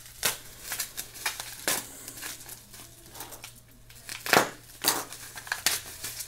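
Plastic bubble wrap crinkling and crackling in irregular bursts as it is handled and picked open, with one sharp crackle a little over four seconds in.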